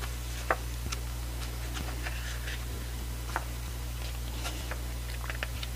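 Pages of a glossy album photo book being turned and handled: soft paper rustles and light clicks, sharpest about half a second in and again a little past three seconds, over a steady low hum.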